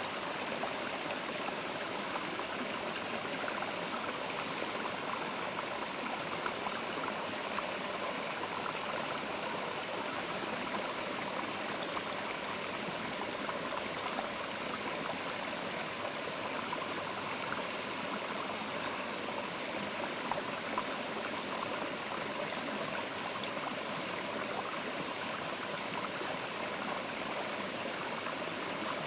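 Mountain river flowing: a steady, even rush of water with no breaks.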